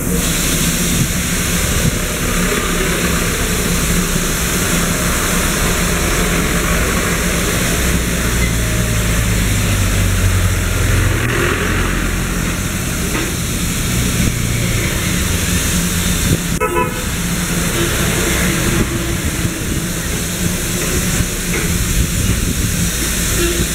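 Darjeeling Himalayan Railway steam locomotive standing with steam escaping in a steady, loud hiss, a low rumble underneath that swells for a few seconds in the middle.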